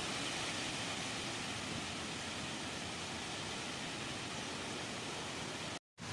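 Storm noise: a steady, even hiss of strong wind and weather with no distinct events. It cuts out abruptly for a moment near the end.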